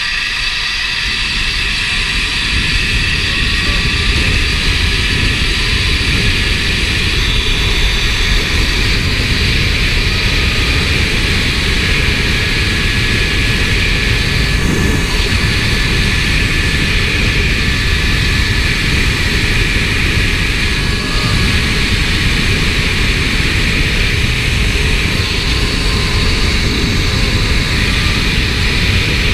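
Wind rushing and buffeting over a GoPro's microphone during a high-speed zip wire descent, together with the steady whine of the zip trolley's pulleys running along the steel cable. It builds over the first few seconds, then holds.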